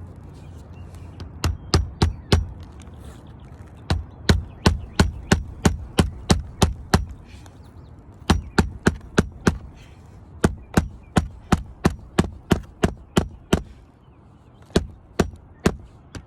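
Hammer driving roofing nails into asphalt shingles: runs of quick, sharp strikes, about three a second, with short pauses between runs.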